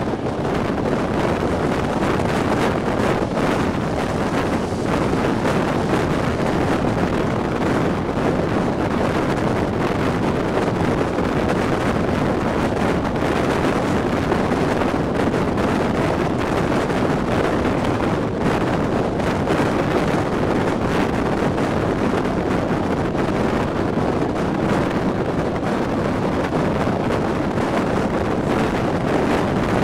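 Steady rush of wind and track noise at the window of a moving passenger train, with the wind buffeting the microphone.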